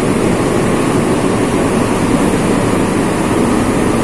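Steady, loud drone of a stationary diesel passenger train idling at the platform. The sound is even and unchanging, with no distinct events.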